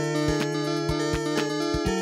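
Yamaha PS-6100 electronic keyboard played: sustained chords over a held bass note, with a clicking percussion beat underneath.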